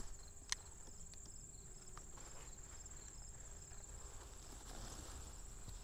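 A sharp snip of garden scissors cutting through a zucchini rampicante stem right at the start, then a smaller click about half a second later and faint rustling of the vines. Under it runs a steady, high-pitched chorus of insects such as crickets.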